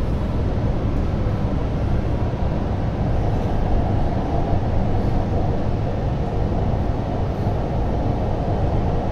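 Interior running noise of a CRRC-built Hanoi Metro train car under way: a steady low rumble of the wheels on the track, with a faint steady tone above it.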